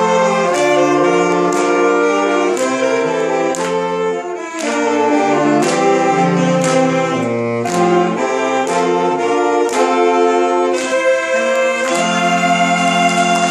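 Saxophone ensemble playing a Christmas medley in harmony over a steady beat, settling into a long held chord near the end.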